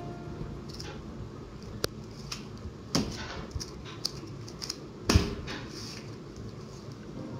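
Hands pinching and squeezing soft roti canai dough into balls over a stainless steel bowl: quiet handling with a few sharp clicks and knocks, the loudest a thump about five seconds in.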